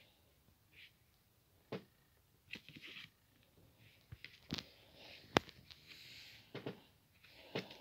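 Scattered sharp clicks and taps with short soft rustling or breathy hisses between them; the loudest click comes about five seconds in.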